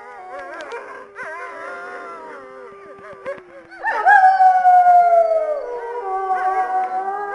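Several wolves howling together in overlapping voices: one low steady howl is held under shorter wavering calls. About four seconds in, a louder howl swoops up and then slowly falls in pitch.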